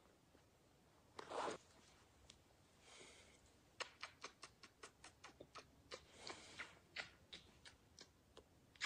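Faint, close sounds: a short breathy sniff about a second in, then a run of light, irregular clicks, two or three a second, lasting several seconds.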